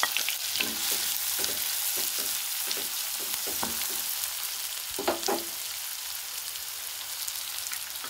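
Chopped onions sizzling in hot oil in a nonstick kadhai, stirred with a wooden spatula that scrapes and taps the pan in quick strokes for the first four seconds. A couple of louder knocks come about five seconds in, then the steady sizzle goes on alone.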